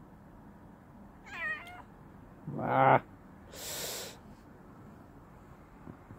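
Domestic cat giving a short wavering meow, then about a second later a louder, low, drawn-out yowl, then a breathy hiss, while it plays with and grabs at a hand.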